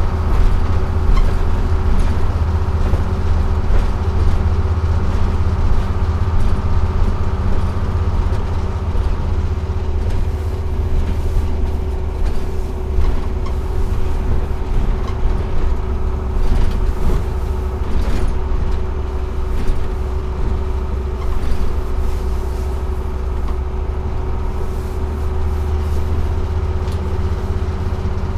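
Cab interior of a 1948 GMC Silversides bus under way: its Detroit Diesel 6-71 two-stroke diesel running steadily, with road noise and scattered rattles from the body.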